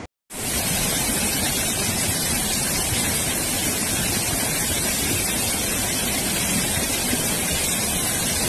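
Fast-flowing floodwater rushing through a flooded wadi: a loud, steady rush of water that starts a moment in, after a brief silence.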